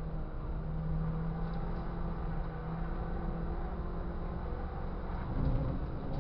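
Ford Fiesta Cup race car's engine heard from an onboard camera, running at fairly steady revs through a corner, with a louder, rougher moment near the end.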